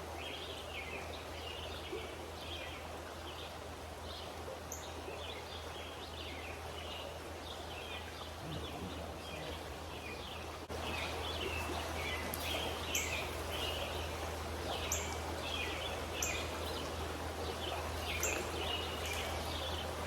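Outdoor ambience by a trout stream: a steady rush of running water with songbirds chirping over it in short repeated calls. About halfway through it gets slightly louder and sharp high-pitched chirps join in every second or two.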